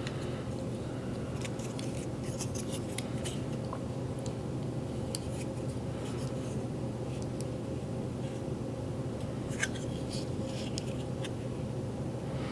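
Small plastic clicks and light scrapes as the hard plastic parts of a 1980s G.I. Joe Cobra Trouble Bubble flight pod toy are handled and worked apart, with one sharper click about three-quarters through. A steady low hum runs underneath.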